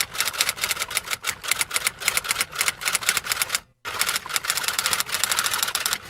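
Typewriter keys clacking in a fast, uneven run of clicks, a typing sound effect. It breaks off for a moment a little past halfway, then resumes more densely.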